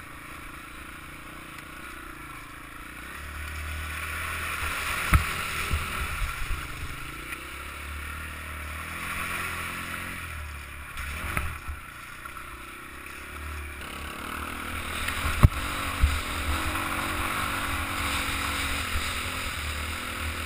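Honda off-road trail motorbike engine running under way, heard from a helmet-mounted camera, the engine swelling louder about four seconds in and again near fourteen seconds, with a hiss of wind and a few sharp knocks.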